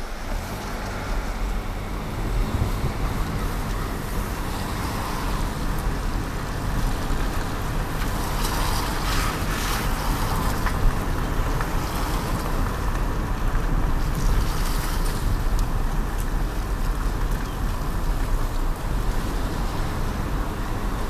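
Road noise from a moving car: a steady low rumble with tyre hiss, louder for a few seconds about halfway through.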